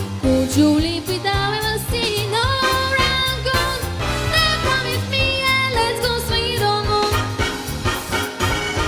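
Swing music with a steady bass line under a melody of held and gliding notes.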